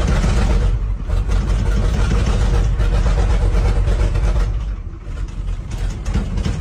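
Diesel engine of an old GMC truck running rough and loud just after firing up, its level dropping about five seconds in. It does not rev up under throttle, which fits the owner's finding that both fuel tanks are empty.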